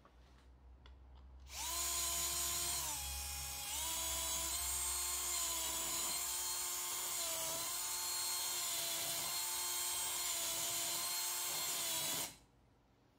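Cordless drill motor whining steadily as it cuts into a hole in a metal plate, starting about a second and a half in and stopping abruptly near the end. Its pitch sags briefly a few seconds in and dips slightly several more times as the cut loads the motor.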